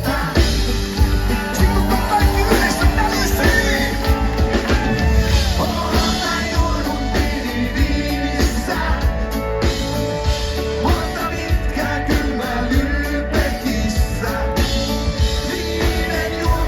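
Live band playing with a singer, in a rock-and-roll style.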